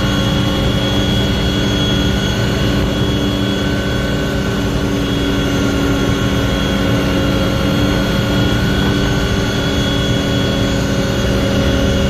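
Aircraft engine heard from inside the cabin: a loud, steady drone with several held whining tones.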